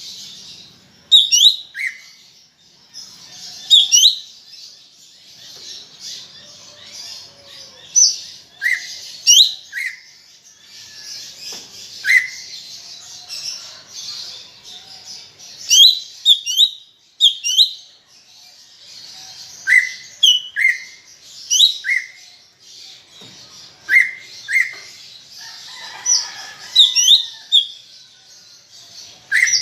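Green leafbird (cucak ijo) singing a lively, continuous chattering song, broken every second or two by loud, sharp whistled notes that sweep up and down in pitch.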